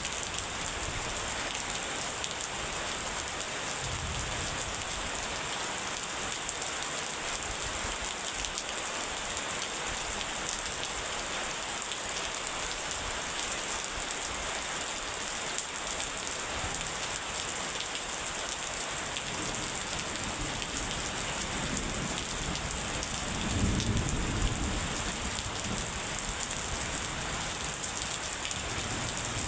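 Steady rain falling, an even hiss throughout. A low rumble of thunder swells briefly about four-fifths of the way through, with a fainter one about four seconds in.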